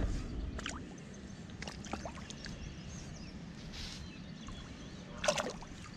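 Shallow river water sloshing and trickling around a large fish held by hand at the bank as it is released, with a louder splash near the end as it swims off.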